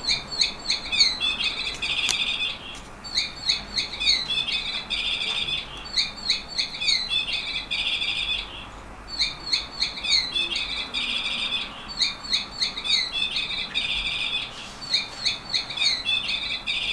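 Yellow canary singing, repeating the same short song phrase again and again: a few quick sweeping notes followed by a fast rolling trill, each phrase about two seconds long, with brief pauses between them.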